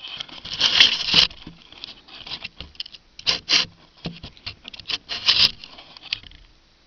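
Irregular rustling, scraping and light tapping of clothing and hands right against the camera as it is being positioned, loudest in the first second or so, then dying away near the end.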